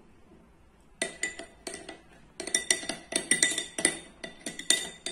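Metal spoon clinking and scraping against a ceramic bowl while stirring milk into chocolate syrup. The taps start about a second in, come a few at a time, then run quick and many from about halfway.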